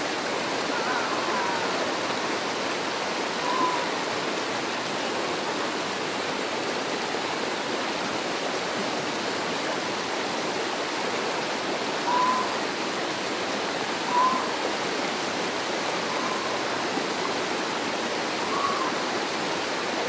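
Steady rush of a mountain creek pouring into a pool, with a few short, faint high-pitched sounds scattered over it.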